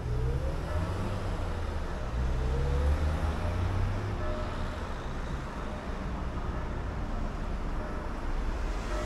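Road traffic: motor vehicles passing and pulling away, over a steady low rumble, with a rising engine note now and then.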